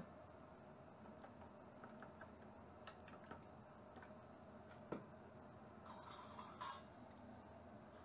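Faint, irregular clicks of a wire whisk against a stainless steel bowl as eggs are beaten, then a brief clatter of metal bowls being moved about six seconds in.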